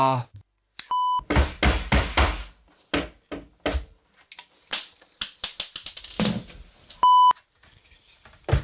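Two short electronic beeps about six seconds apart, each a steady tone held for about a third of a second. Between them come irregular clattering and knocking.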